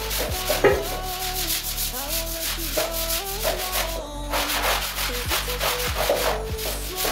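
Electronic background music with a steady beat, a stepping synth melody and a bass line.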